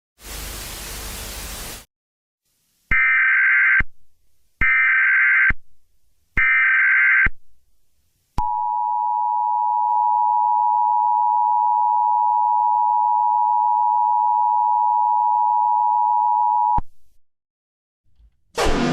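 A short burst of static hiss, then three loud bursts of screechy EAS SAME header data tones, then the Emergency Alert System two-tone attention signal held for about eight seconds before cutting off. A new siren-like sound starts right at the end.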